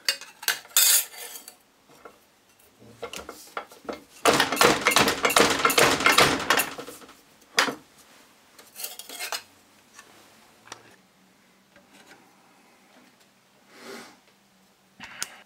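Wood blocks and steel plates clattering and scraping on a workshop press while a copper heatsink plate is flattened. There are a few knocks in the first two seconds, a long spell of dense rattling and scraping from about four to seven seconds in, then scattered clicks and knocks.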